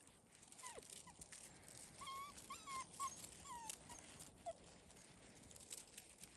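Fox red Labrador puppy whimpering faintly: a string of about seven short, high squeaks over a few seconds, with faint clicks and rustles around them.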